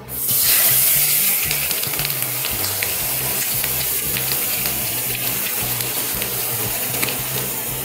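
Water poured into a hot pan of ghee-roasted wheat flour and sugar, sizzling as it hits the fat, with many small crackles. The sizzle starts suddenly, is loudest in the first second or so, then settles into a steady hiss.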